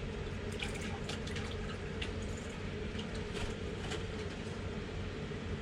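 Light dripping and small splashes of water with scattered faint clicks, over a steady low hum.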